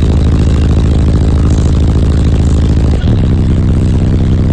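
Subwoofers of a 10,000-watt truck car-audio system playing very loud, deep bass, the low notes shifting with a falling sweep about three seconds in.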